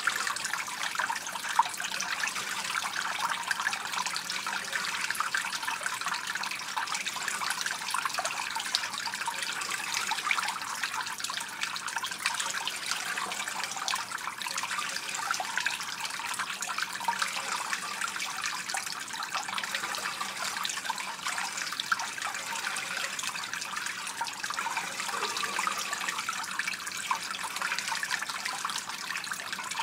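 A stream of water pouring steadily into a shallow pool, a continuous splashing trickle with no pauses.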